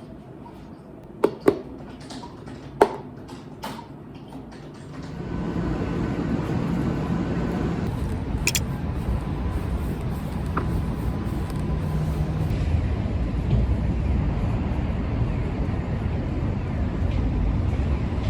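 A few sharp clicks, then about five seconds in a steady low rumbling noise sets in and carries on.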